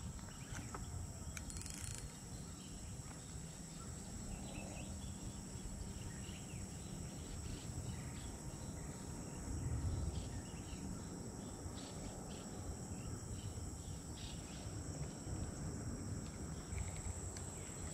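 Insects, crickets or similar, chirring in a steady high even tone over a low rumble, with a few faint ticks.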